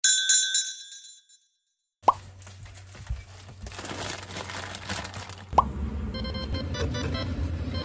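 Edited sound effects: a short bright chime at the very start, then two quick rising 'plop' effects, a couple of seconds and about five and a half seconds in. Faint kitchen handling noise lies between them, and light background music begins just after the second plop.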